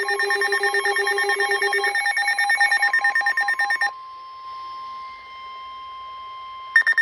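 Weather alert radio's alarm beeping very rapidly in several pitches at once. About four seconds in it gives way to a quieter steady single-pitch tone, the NOAA Weather Radio warning alarm tone that comes before a warning message. The rapid beeping starts again near the end.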